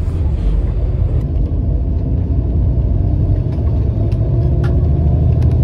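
Intercity express bus on the move, heard from inside the cabin: a loud, steady low rumble of engine and road noise, with a few light clicks or rattles.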